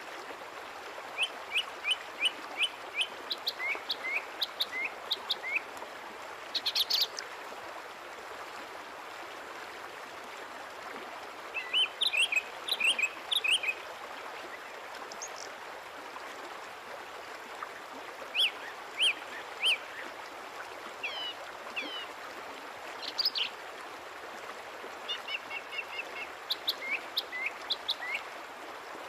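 Surf breaking and washing on a sandy beach as a steady rushing noise, with bursts of short, high bird chirps every few seconds over it.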